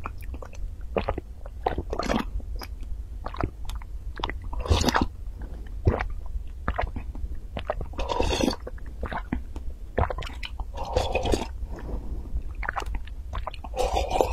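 Close-miked mouth sounds of drinking from a glass cup: many small wet clicks and swallows, with longer slurping sips about five, eight, eleven and fourteen seconds in.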